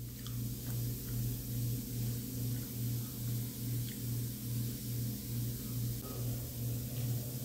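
A steady low hum with a regular throb, about three pulses a second, like an electric household appliance running, with a few faint ticks.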